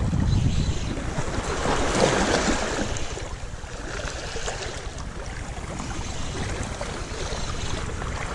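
Shallow sea water washing and lapping over a weedy rock reef, with wind buffeting the microphone; a louder surge of wash comes about two seconds in, then it settles lower.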